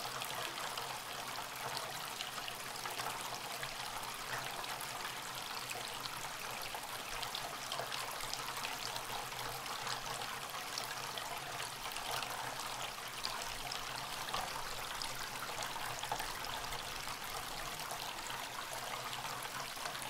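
Small tabletop fountain running: water pours from a tipped terracotta pot and trickles and splashes steadily over stones into a pebble-filled basin.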